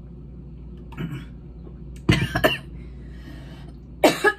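A woman coughing: a small cough about a second in, then a loud fit of coughs around two seconds in and another near the end. She has breathed in some of her drink.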